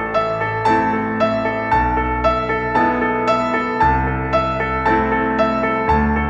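Background music: a gentle piano or electric-piano piece playing evenly paced notes, about two a second, over a bass line that changes every couple of seconds.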